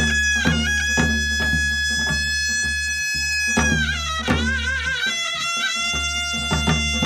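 A taepyeongso, the Korean double-reed shawm, holds a long high note, then bends down into a wavering, ornamented passage with wide vibrato about four seconds in, over steady drum strokes from the accompanying drummer.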